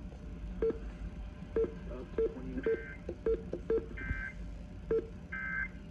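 Emergency Alert System end-of-message tones: three short bursts of buzzy digital data tones about a second and a bit apart, marking the close of the required monthly test broadcast.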